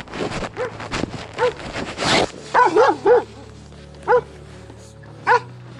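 A dog barking in short, high yelping barks, about seven of them, three in quick succession near the middle. A brief rustle of handling noise about two seconds in.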